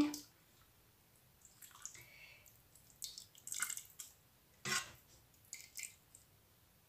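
A few faint, scattered drips and small taps, as soup broth is ladled from the pot.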